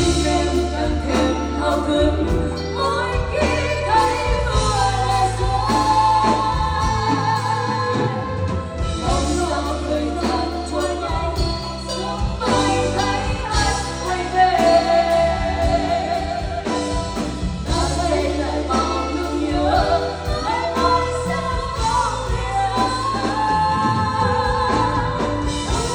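A song playing: a singing voice carrying a gliding melody over band accompaniment with a steady bass.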